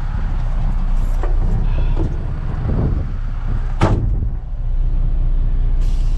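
Semi truck's diesel engine idling steadily, heard from inside the cab, with one sharp knock a little before the four-second mark. Near the end, a brief hiss of air as the dash air-brake valve knobs are worked.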